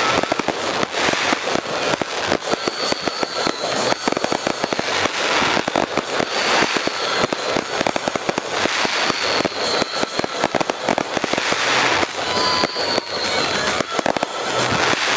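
Fireworks display: a dense, unbroken barrage of aerial shells bursting, many sharp bangs and crackles overlapping with no pause.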